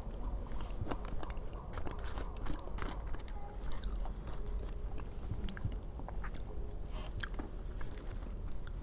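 A person chewing and biting food close to the microphone, with irregular small mouth clicks and crunches.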